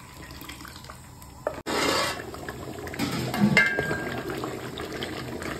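A ladle stirring thick mutton curry in a large metal cooking pot, with the gravy sloshing and pouring back off the ladle. It gets louder about a second and a half in, and there is a short metallic clink of the ladle on the pot around three and a half seconds in.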